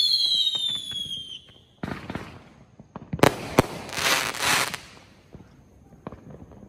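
Consumer fireworks. Several whistles slide slowly down in pitch and fade out in the first second and a half. About three seconds in come two sharp bangs, then a loud crackling, hissing burst, and faint scattered pops near the end.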